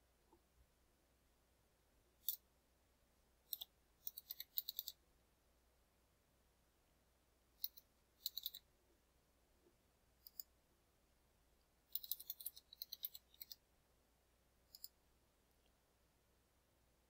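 Computer keyboard keys tapped in quick runs of several strokes, entering numbers, with single clicks between the runs. The two longest runs come about four seconds in and about twelve seconds in.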